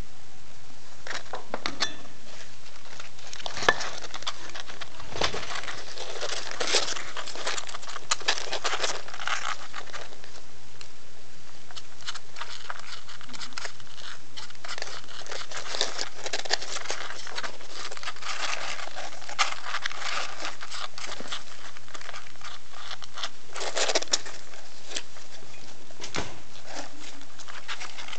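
Rustling and crinkling of nest bedding and fur as a hand strokes a litter of young animals and they shift about, in irregular bursts with small clicks, over a faint steady low hum.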